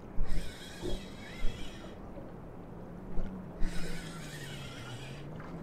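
Spinning reel being cranked in two bursts of about a second and a half each, a fine whirring hiss, over a low wavering hum.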